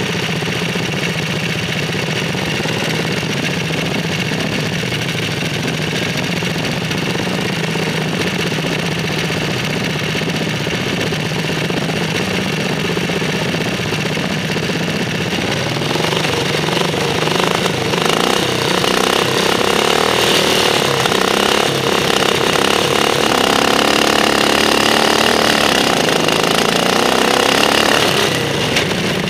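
Racing ride-on lawn mower engines running at idle, then growing louder with shifting, rising and falling pitch from about 17 seconds in as the mowers rev and pull away, easing back near the end.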